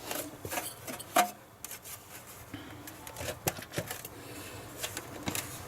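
Scattered light clicks and rubbing from handling the parts of a PS3 Slim being taken apart, with a few sharper knocks here and there.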